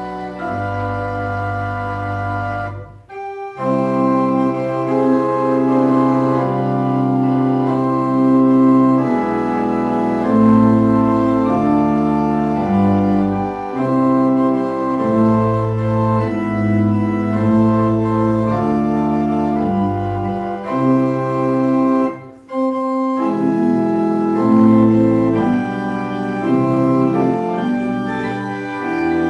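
Church pipe organ playing slow, sustained chords. The music breaks off briefly twice between phrases, about three seconds in and again about twenty-two seconds in.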